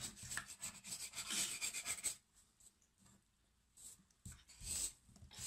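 A plastic spatula scraping and rubbing over play dough on a plastic mat in quick strokes for about two seconds, then again briefly after a short pause.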